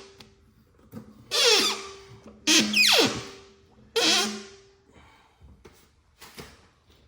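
Background music: loud hits with falling sweeps over a held low note, thinning out to a few faint ticks near the end.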